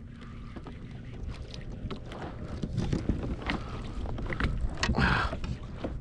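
Wind buffeting the microphone and water lapping at a kayak's hull, with scattered small clicks and knocks and a brief hiss about five seconds in.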